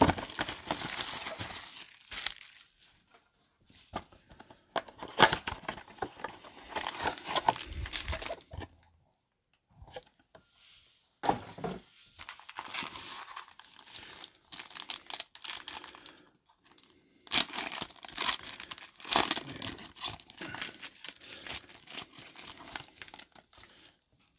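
Plastic shrink wrap and foil trading-card packs crinkling and tearing as a blaster box of cards is unwrapped and a pack is ripped open. The sound comes in bursts of a few seconds, with a near-silent pause about nine seconds in.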